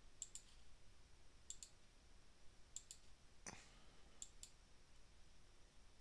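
Faint computer mouse clicking: four quick double-clicks about a second and a quarter apart, with one soft knock about halfway through.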